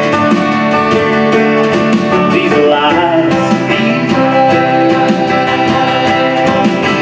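Live country-bluegrass band playing: banjo and acoustic guitar over a drum kit with steady cymbal strokes.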